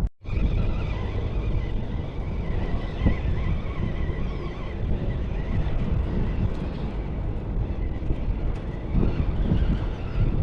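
Wind buffeting the microphone in a steady rushing roar, gusting up and down, with a faint thin tone in the background during the first few seconds.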